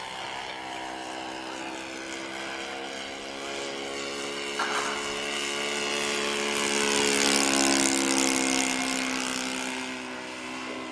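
OS .48 four-stroke model airplane engine running steadily in flight on a radio-controlled Quaker, growing louder to a peak about seven to eight seconds in as the plane passes close, then fading.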